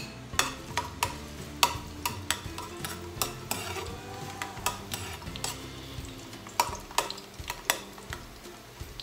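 A metal spoon stirring and scraping minced garlic around a stainless steel frying pan, with many sharp clinks of spoon on pan over a light sizzle of garlic starting to sauté in hot oil.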